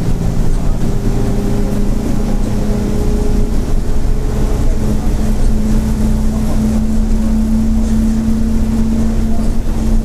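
Mercedes-Benz OF-1722M bus running under way: a steady low drone of engine and drivetrain, with a humming tone that climbs slowly and then holds, the growl of its differential.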